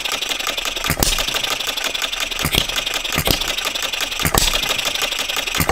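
Philip Duclos 'Odds n Ends' model hit-and-miss engine, running on cast iron piston rings, with flywheels spinning. It fires about five sharp beats at uneven intervals of roughly a second, coasting between them with a fast, steady mechanical clatter.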